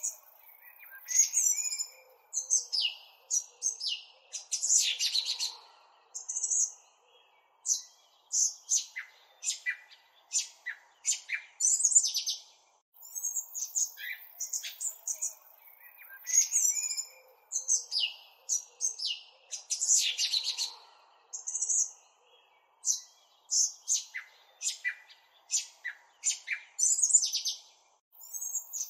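Small birds chirping and calling in quick runs of short, high notes with brief pauses between them. The same sequence of calls comes round again about halfway through, like a looped recording.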